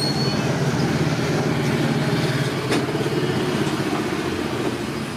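An engine idling with a steady, even hum.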